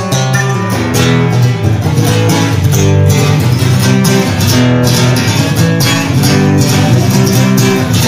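Classical acoustic guitar strummed in a steady rhythm, an instrumental passage with no singing.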